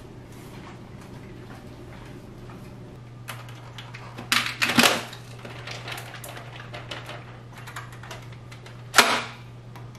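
A few sharp clicks and knocks of household objects being handled, a quick cluster about halfway through and one louder knock near the end, over a steady low hum.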